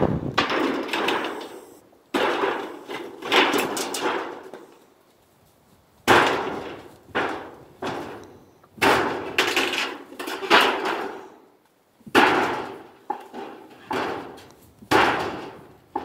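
Old tin roofing sheets being knocked and torn loose during demolition of a shed. About a dozen sharp metallic crashes and rattles come in uneven groups, each dying away over about a second.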